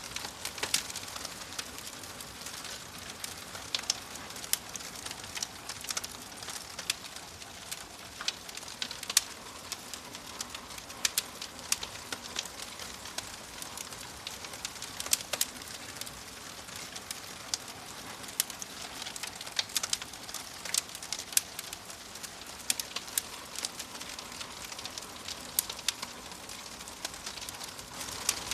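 Fireplace fire crackling: frequent sharp, irregular pops and snaps over a steady soft hiss.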